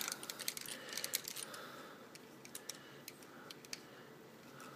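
Faint, irregular plastic clicks and light rattling from a Transformers Classics Hound action figure as its joints and parts are twisted and snapped into place by hand during transformation.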